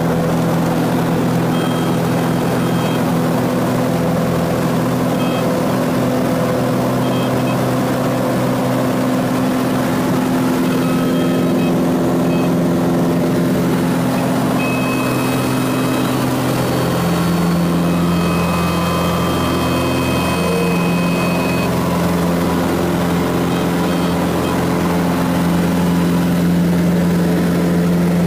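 Cessna 180 floatplane's six-cylinder Continental engine and propeller running steadily, heard inside the cabin. A little past halfway the drone changes pitch and grows deeper and stronger as power comes up.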